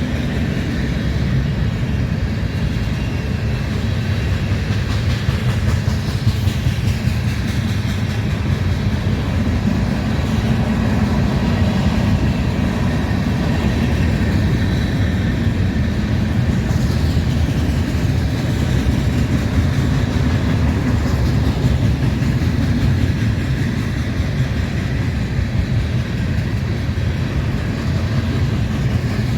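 A passing train's cars rolling by on the rails: a steady, continuous rumble that doesn't let up.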